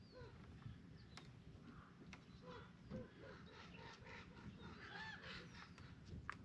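Faint birds calling: many short chirps and honk-like calls, scattered and overlapping.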